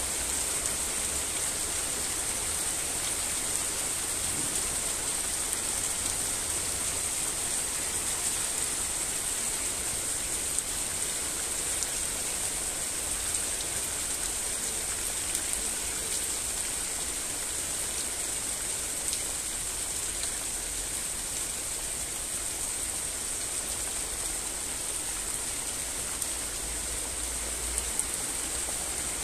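Steady rain: an even hiss with occasional faint ticks.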